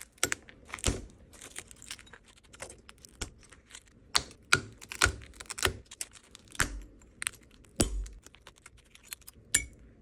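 Irregular sharp clicks and taps of tools chipping and picking away the iPhone 11's cracked back glass, with fainter ticks between the louder strikes.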